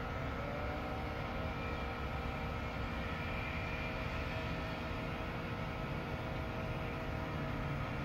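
Steady hum of distant road traffic, with trucks and cars passing.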